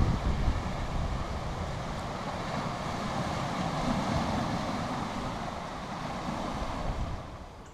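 Small waves washing in over a shore of rounded boulders, a steady rushing of surf, with some wind rumbling on the microphone. The sound drops away sharply near the end.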